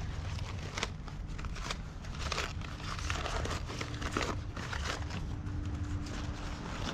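Packaging around a set of connecting rods being crumpled and torn open by hand, an irregular run of crinkling and rustling over a low steady hum.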